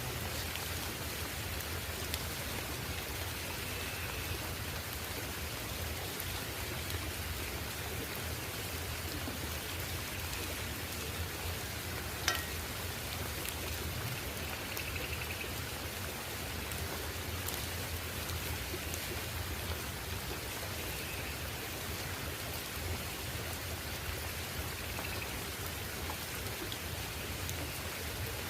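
Steady rain falling, with scattered sharp drip ticks, the clearest about twelve seconds in.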